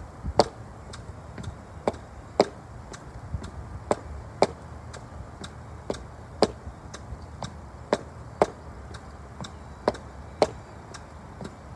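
High-heeled boots clicking on brick steps during a step-up test, about two steps a second, with a louder strike every two seconds.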